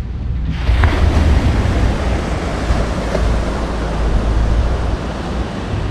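Loud, steady rushing noise with a heavy low rumble, starting suddenly about half a second in.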